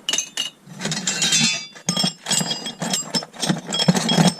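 Small pieces of scrap metal clinking and clattering as they are picked out of a box and dropped onto a pile, with many sharp knocks and brief metallic rings.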